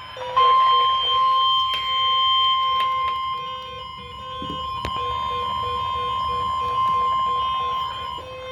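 NOAA Weather Radio warning alarm tone: a steady, single-pitched tone near 1050 Hz that starts just under half a second in and holds on, announcing a tornado warning. A lower tone beeps rapidly beneath it.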